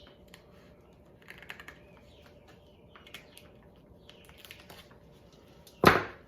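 Scattered light clicks and crinkles from handling a wet prime rib roast and its plastic wrapping, then one loud thump near the end.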